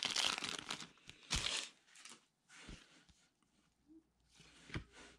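Foil wrapper of a football trading card pack being torn open and crinkled, strongest in the first second and a half. This is followed by softer rustling as the cards are slid out and handled, with a light tap near the end.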